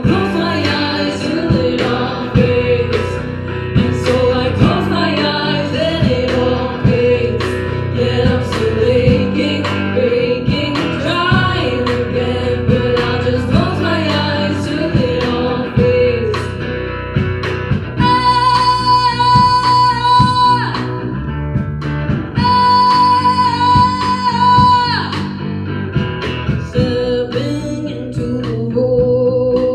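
Live rock band playing: female lead vocals over bass guitar, acoustic-electric guitar and a small drum kit. Two long held high notes ring out in the second half.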